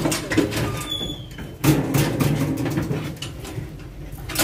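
A pig being pushed into a steel-barred weighing crate: the pig grunts while the crate's bars clatter and knock, loudest about a second and a half in.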